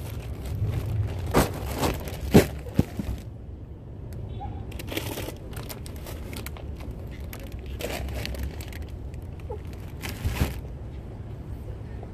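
Groceries being unloaded from a metal shopping cart: sharp knocks and rattles as items are lifted out and set down, several in quick succession in the first few seconds and another near the end, with scraping and rustling in between, over a steady low rumble.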